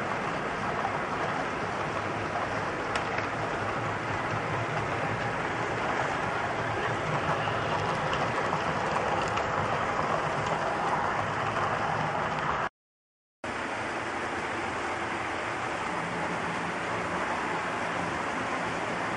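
HO-scale model freight cars rolling along the track with a steady rolling noise of small metal wheels on the rails. The sound cuts out completely for under a second about 13 seconds in, then goes on.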